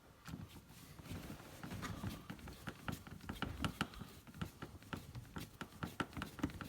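A small screw being driven into the plastic side window of a ride-on toy car, with many small irregular clicks and creaks, several a second, from the turning screw and the handling of the parts.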